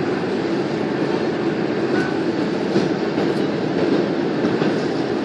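Steady rumbling roar inside the passenger cabin of a Boeing 767: engine and airflow noise, even and unbroken.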